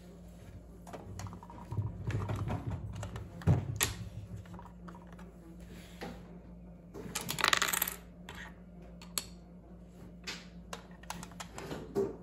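Scattered light clicks and taps, with a sharp tap about three and a half seconds in and a short rustle about seven and a half seconds in.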